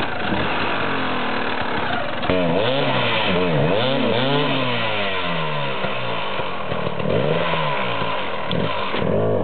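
Enduro motorcycle engine revving up and down over and over. From about two seconds in the pitch rises and falls roughly once a second as the throttle is worked.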